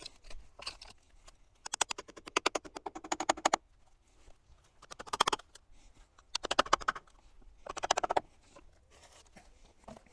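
Scraping in four bursts of rapid rasping strokes: a long one about two seconds in, then three shorter ones.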